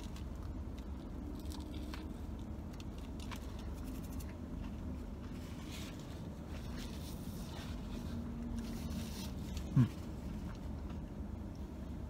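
A man chewing a mouthful of toasted sub sandwich over a steady low hum in a car's cabin, with faint rustling of the paper wrapper in the middle. About ten seconds in he gives one short 'mm' that falls in pitch.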